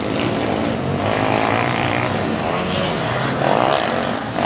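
Several motocross bikes on the dirt track running at race pace, their engines blending into a steady buzzing drone, with one engine revving up about three and a half seconds in.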